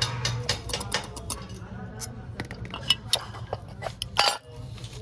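Metal tools and parts clicking and clinking during motorcycle engine repair work: a quick, even run of about six clicks a second at first, then scattered clinks, with the loudest clatter about four seconds in.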